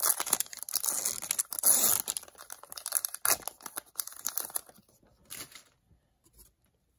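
A 2018-19 Upper Deck Series 1 hockey card pack's foil wrapper being torn open and crinkled, a dense crackling for about the first four and a half seconds, then dying down to a brief rustle about five seconds in.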